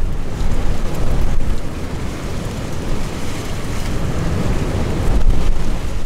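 Strong mountain-ridge wind blowing hard across the microphone in gusts, a rushing noise that rises and falls.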